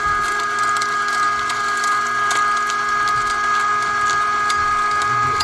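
Electric meat grinder running with a steady motor whine, crackling and snapping as its auger crushes bone-in chicken.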